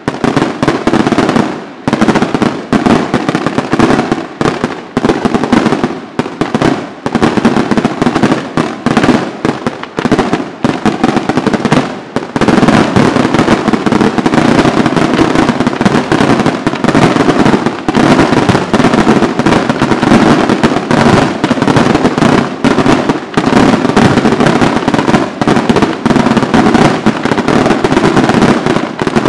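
Aerial fireworks display: rapid bursts and reports in quick succession, with short gaps at first. About twelve seconds in it becomes an unbroken barrage.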